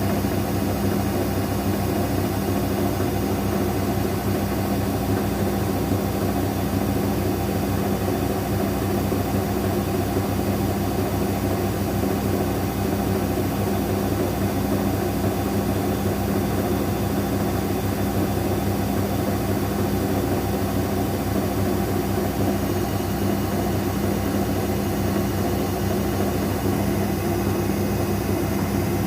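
Daewoo DWD-FT1013 washing machine spinning at 800 rpm with an unbalanced load: a steady, unchanging hum.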